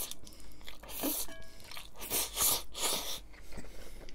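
A person slurping spaghetti noodles and chewing with a full mouth, with a few loud wet slurps in the middle.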